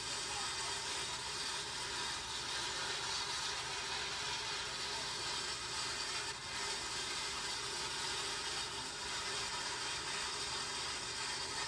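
Steady rushing noise of a train in motion, with no separate exhaust beats or impacts standing out.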